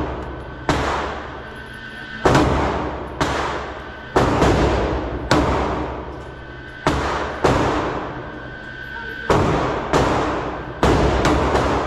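Smith & Wesson Equalizer 9mm pistol fired about a dozen times at an unhurried pace, the shots closer together near the end; each shot is a sharp crack with a long echo off the walls of an indoor range.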